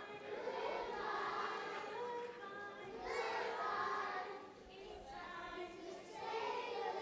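A choir of young children singing together, in sung phrases with a brief dip about halfway through.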